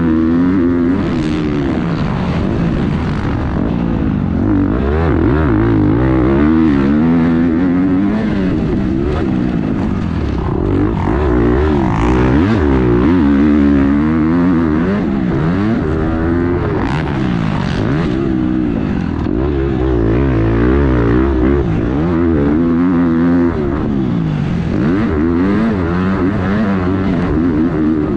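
Motocross dirt bike engine heard from on board the bike, revving up and dropping back again and again as the rider accelerates and rolls off along the track.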